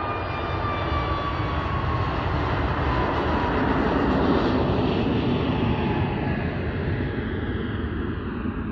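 An airplane flying over. The engine noise grows louder to a peak about halfway through, then fades, and its tone falls in pitch as it passes.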